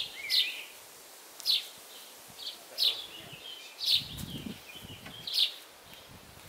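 Small birds chirping: short high chirps roughly every second, with softer twittering between them and a brief low rustle about four seconds in.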